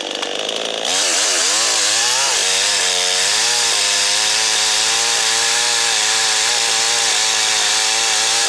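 Gas chainsaw revved up about a second in and held at full throttle, cutting upward through a long log from underneath to finish an undercut. Its pitch wavers at first as the chain bites, then holds steady under load. Cutting from below keeps the kerf from closing and pinching the bar.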